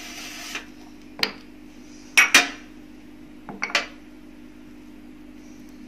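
A metal spoon clinking and scraping against a small ceramic ramekin of cheese sauce as it is scooped. There is a single clink about a second in, a louder double clink a little after two seconds, and two more quick clinks a little before four seconds.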